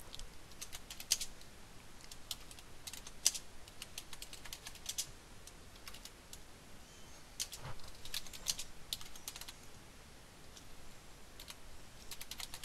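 Computer keyboard typing in irregular bursts of quick keystrokes, with short pauses between the bursts.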